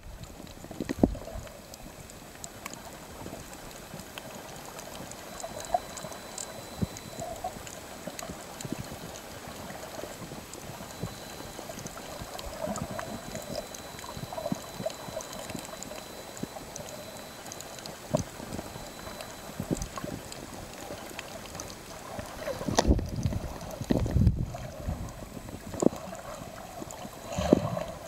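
Underwater ambience picked up by a camera below the surface: a steady watery hiss with scattered faint clicks, and a few louder bubbling, sloshing bursts near the end.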